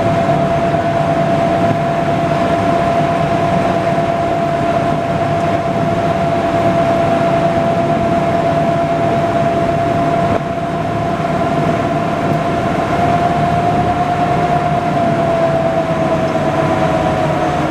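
WWII-era DUKW amphibious duck boat running under way on the water: a steady engine drone with a constant high whine that sags slightly in pitch near the end.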